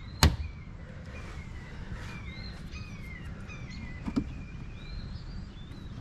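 A plastic push-in trim fastener snaps into place with one sharp click, and a quieter click follows about four seconds later. Songbirds chirp repeatedly over a low steady outdoor rumble.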